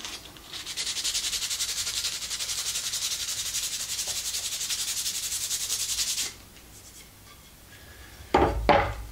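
Sandpaper rubbed by hand along a wooden buck saw frame piece in quick, even back-and-forth strokes for about six seconds, sanding off pencil marks. Near the end come two knocks of the wooden piece being set down on the wooden tabletop.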